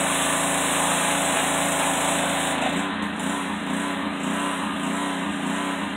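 Petrol-engine pressure washer running, with the hiss of its spray jet. About three seconds in, the spray hiss drops and the engine note starts to waver in a regular beat.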